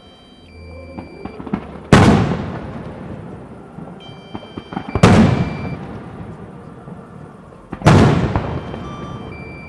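Fireworks display: three loud aerial shell bursts about three seconds apart, each a sharp bang followed by a long echoing rumble that dies away.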